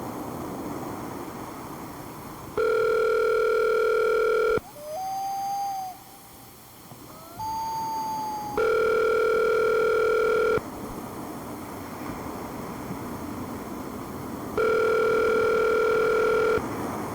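Telephone ringback tone heard over the phone line: three rings, each a steady two-second buzz followed by about four seconds of line hiss, the North American ring cadence of a call ringing unanswered at the other end. Two short, wavering higher tones sound in the first pause.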